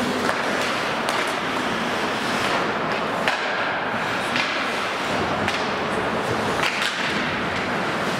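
Ice hockey skates scraping on the ice in a steady hiss, with several sharp clacks of sticks striking the puck.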